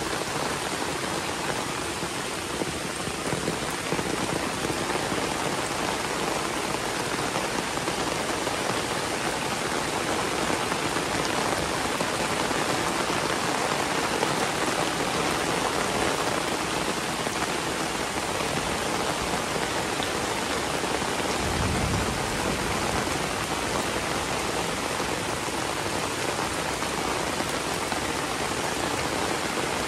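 Heavy rain falling steadily. A brief low rumble comes about two-thirds of the way through.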